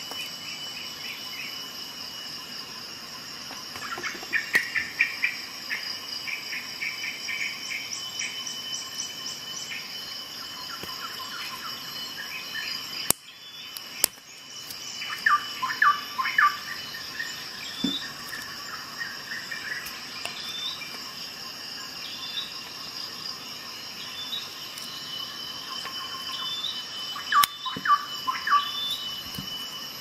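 Steady high chorus of chirping insects, with short bursts of quick bird chirps several times. Two sharp clicks about a second apart near the middle.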